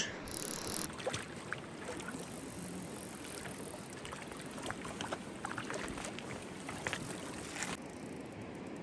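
Steady rush of flowing river water, with scattered faint sharp ticks and clicks on top.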